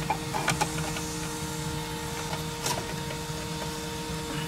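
Metal mounting sleeve for a car stereo head unit being slid into the dash opening, with a cluster of sharp metallic clicks and scrapes in the first second and another click just past the middle, over a steady background hum.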